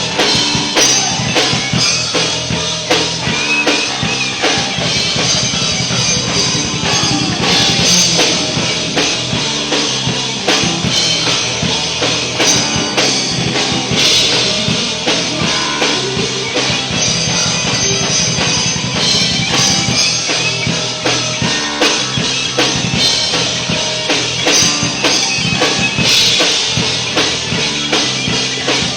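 Live rock band playing an instrumental passage, with the drum kit loud and busy: bass drum, snare and cymbals.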